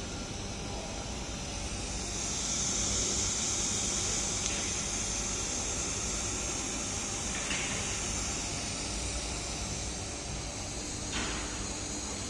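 Steady hiss of shielding gas blowing from a laser welding head, louder and sharper from about two seconds in until near the nine-second mark, with a few faint ticks.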